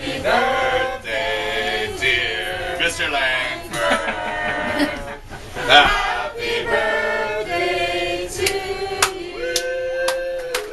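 A group of people singing a birthday song together, ending on a long held note near the end.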